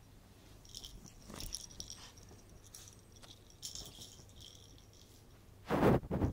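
Chihuahua rooting with its nose and paws in a blanket for a ball: scratchy rustling and rattling for a few seconds, then two loud short thuds near the end as it comes up with the ball in its mouth.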